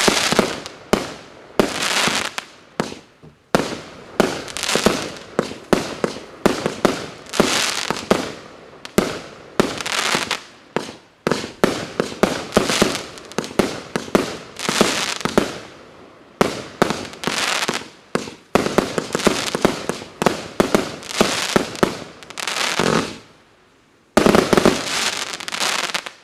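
Consumer fireworks cake firing shot after shot, about one to two a second, each shot a bang followed by a crackling burst. After a brief lull near the end comes a last, loudest volley of crackle.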